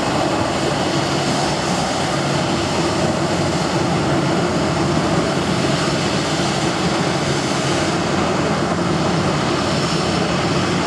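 Boeing 737-700 jet engines (CFM56-7B turbofans) running steadily at taxi power as the airliner taxis past.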